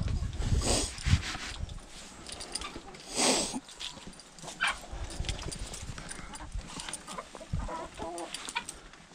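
Chickens clucking, with a short harsh squawk about three seconds in and a few wavering calls near the end, over a steady low wind rumble on the microphone.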